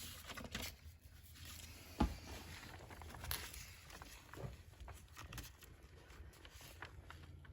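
Faint handling noise: light rustles and small clicks, with one sharper knock about two seconds in.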